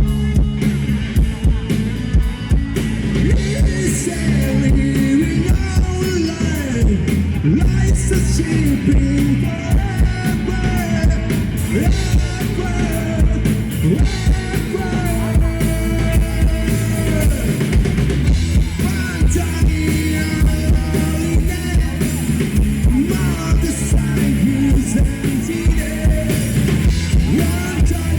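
Rock band playing live with a drum kit, with a wavering melody line over the band.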